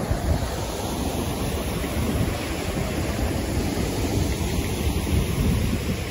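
Steady rushing noise of wind buffeting the microphone, mixed with river water spilling over a low weir.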